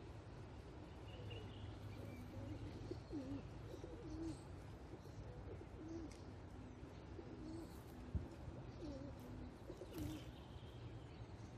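A pigeon cooing, a faint run of low coos repeating, with a few faint high bird chirps and a single short knock about eight seconds in.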